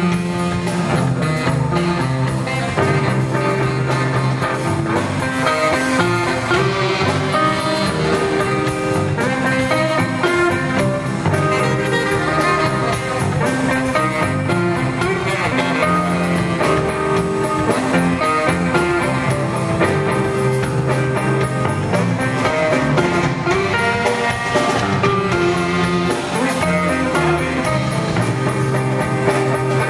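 Live band playing instrumental blues-style music: electric bass and drum kit with guitar, played through a stage PA.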